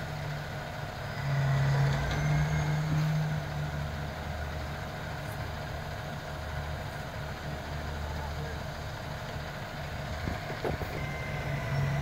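Truck-mounted crane's diesel engine running steadily, growing louder and a little higher in pitch for a couple of seconds about a second in.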